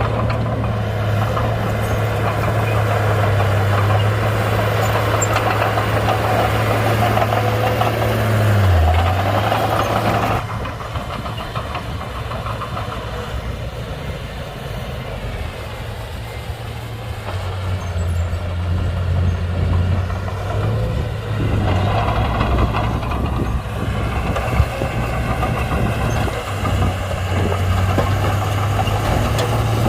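Komatsu D31-P bulldozer's diesel engine running steadily as it pushes dirt, its pitch dipping briefly about nine seconds in. About ten seconds in it drops suddenly to a quieter level, then builds back up over the last third.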